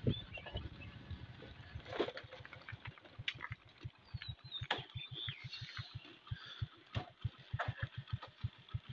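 Walking on a stony dirt path: frequent soft low thumps from footsteps and handling, with a few sharp clicks. A couple of short bird chirps, one at the start and one about halfway through.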